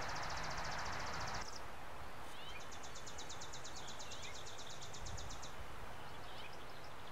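A songbird singing a rapid, high, dry trill, twice, the second one about three seconds long, with other birds giving short chirps. A steady rushing background noise stops about a second and a half in.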